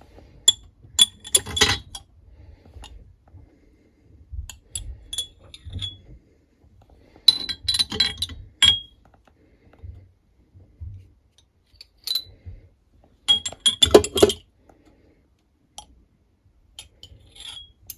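Glass jars clinking against metal tongs and against each other as they are lifted out of an air fryer and set down, in about six short bursts of sharp clinks with a brief high ring.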